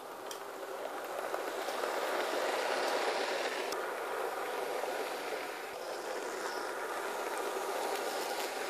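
Two model train locomotives, one of them a Taurus, running together on sectional track: a steady whirring rumble of their motors and wheels on the rails that grows louder about two seconds in as they pass close, with a few faint clicks.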